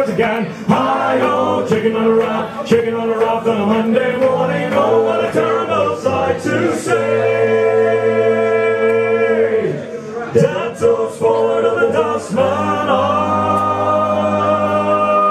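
A group of men singing a sea shanty together in harmony, with a long held chord past the middle and another near the end.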